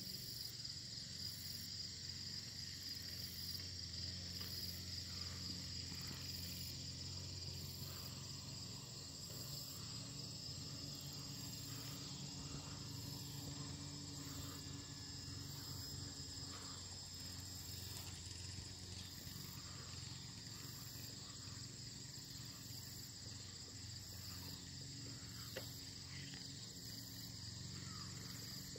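Crickets chirping in a steady, continuous high chorus, with a faint low hum underneath.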